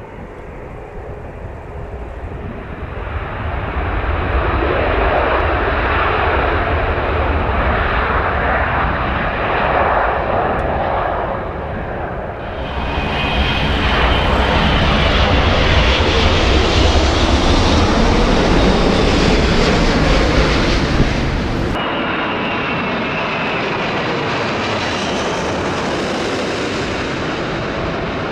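Airplane engine and airflow noise heard from aboard the aircraft: a loud, steady rush that grows louder over the first few seconds, then changes abruptly twice, with a high whine running through the later stretches.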